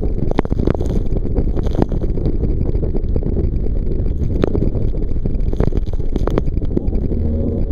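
Whitewater rapids at high water rushing around an inflatable raft, a deep, muffled, steady rush of water and wind on the microphone, with scattered sharp taps and knocks.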